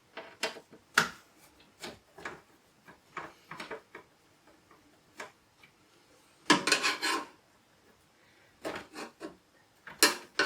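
Screwdriver backing small screws out of a hard-drive mount in a metal PC case: scattered clicks and short scrapes, with a louder clatter of metal about six and a half seconds in.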